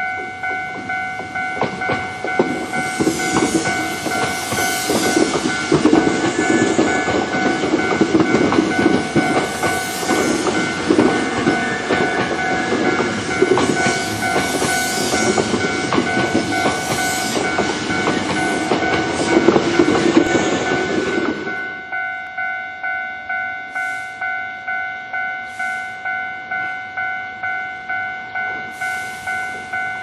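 Japanese level-crossing bell ringing its repeated 'kan-kan' tone, just under two strikes a second. A Hankyu electric commuter train clatters past over the crossing, wheels knocking over the rail joints with some high squealing. Its noise cuts off sharply about two-thirds of the way in, leaving the bell alone.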